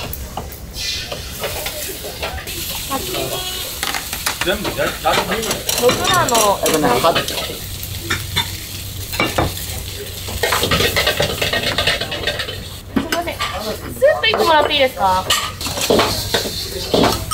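Metal ladle scraping and clanking against a wok over a gas burner, with food sizzling in hot oil.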